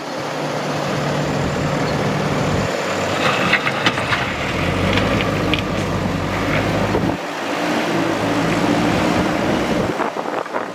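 Diesel engine of a JCB 3DX backhoe loader working, its engine note rising and falling several times as it takes load, with a run of metallic clanks about three to four seconds in.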